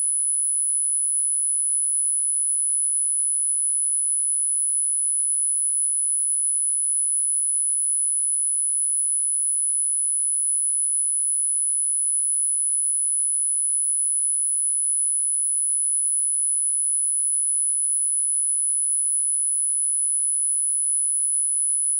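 A single very high-pitched electronic sine tone held steady at one pitch and level, the frequency tone of a subliminal track.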